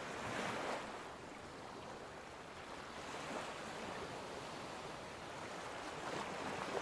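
Soft rushing whoosh noise, like wind or surf, swelling about half a second in and again near the end.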